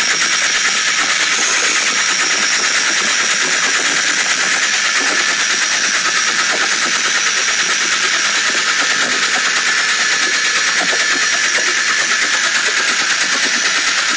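Porsche 996 911 Carrera 4 flat-six idling steadily with a loud, fast, even metallic clatter over it. This is the abnormal noise of a failed engine that ended up needing a short-block replacement.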